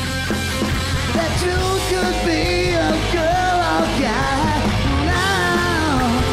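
Live rock band playing, with a male lead singer's vocal line over electric guitars, bass and drums.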